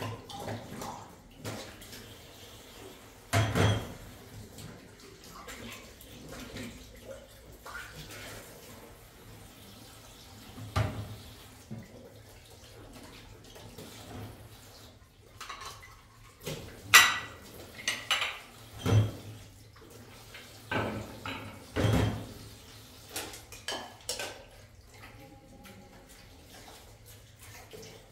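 Dishes and pots clinking and knocking now and then, with a few louder knocks. One clink past the middle rings briefly.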